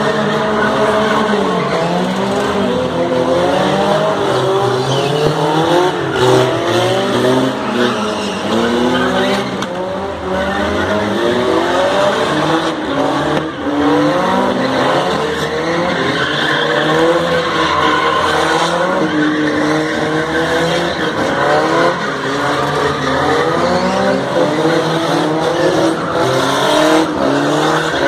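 Car engines revving hard, their pitch rising and falling again and again, with tyres squealing and spinning on concrete as the cars do donuts and burnouts, making tyre smoke.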